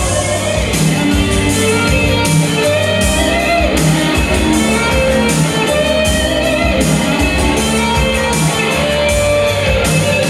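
Instrumental break in a chanson song: the backing track plays on without vocals, with a steady beat.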